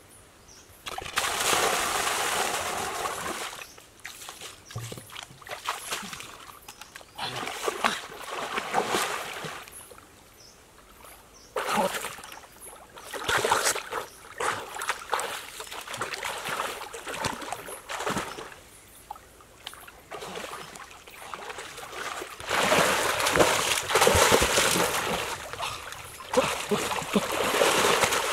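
People swimming in a small swimming pool, their kicks and arm strokes splashing the water in bursts a few seconds long with quieter spells between. The longest and loudest splashing comes near the end.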